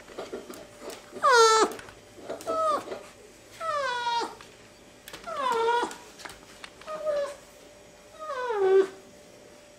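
Coypu (nutria) crying while being stroked: six short pitched cries about a second and a half apart, each sliding down in pitch.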